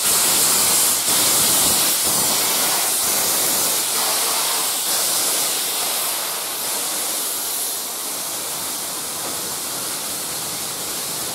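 NZR JA-class steam locomotive JA 1271 hissing loudly with escaping steam as it pulls out past. The hiss eases a little about seven seconds in as its carriages roll by.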